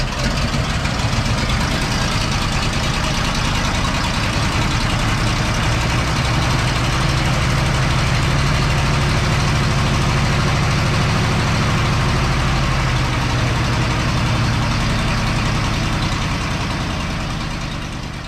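Vintage car engine idling steadily just after starting, with a strong low, even rumble.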